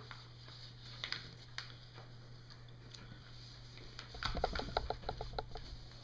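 Folded origami paper being handled against a wooden tabletop: soft rustles and light taps as the model is flipped over, then a quick run of scratchy rubbing strokes about four seconds in as it is pressed flat. A low steady hum runs underneath.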